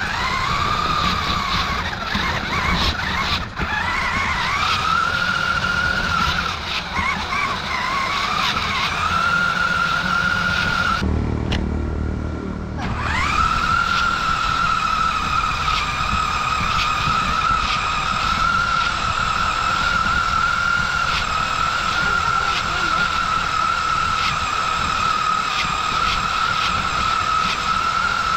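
Electric motor and gears of a Maisto radio-controlled monster truck whining as it drives, the pitch rising as it speeds up and wavering with the throttle, over a rough running rumble. About eleven seconds in the whine stops for a couple of seconds under a louder low rumble, then picks up again and holds steady.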